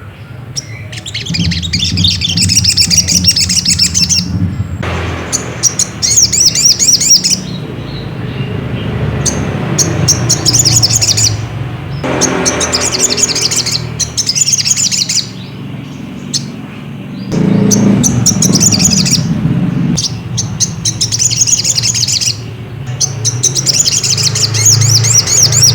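Crimson sunbird (sogok ontong) singing: about seven separate bursts of rapid, high twittering trills, each one to two seconds long, over a steady low hum.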